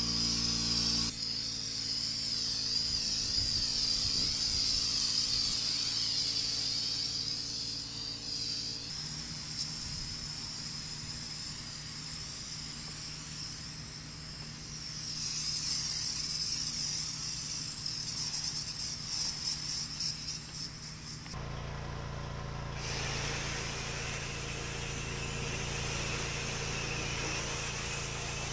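Pressure washer at work: an engine drone under the steady hiss of high-pressure water spray. The sound changes abruptly three times.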